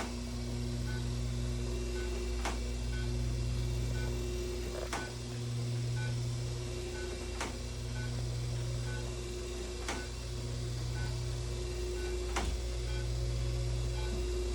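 Class IV therapy laser unit running during treatment: a low hum that swells and dips every couple of seconds, a faint short beep about once a second, and a sharp click about every two and a half seconds.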